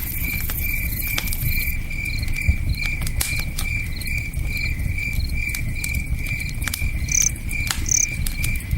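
Campfire crackling with scattered sharp pops, over a cricket chirping in a steady pulse of about two to three chirps a second and the low rush of a river. Two brief higher chirps come near the end.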